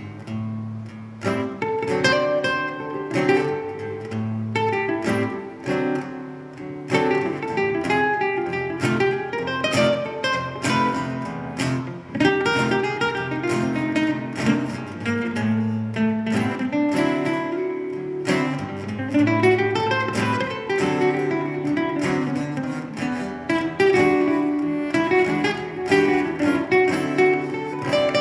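Two acoustic guitars playing an instrumental passage, with quick picked notes over chords.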